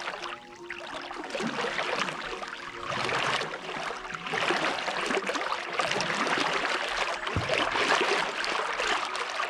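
Lake water splashing and lapping close to a stand-up paddleboard as it glides along, swelling and easing every second or two.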